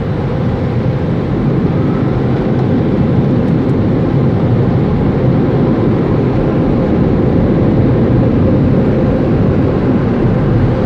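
Steady low rumbling roar of a car heard from inside its cabin as it moves slowly forward, rising slightly over the first couple of seconds and then holding steady.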